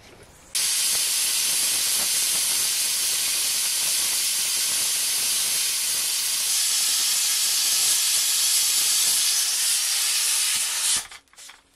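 Pressure cooker on a wood fire venting steam in one loud, steady hiss for about ten seconds, releasing built-up pressure, then cutting off sharply.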